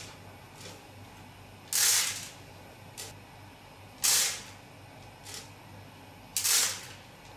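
Tablets tumbling inside the clear plastic drum of a Copley FR-1000 tablet friability tester turning at 25 rpm. A short clattering rush comes about every two and a half seconds, three times, as the tablets drop once per turn, with softer rattles in between.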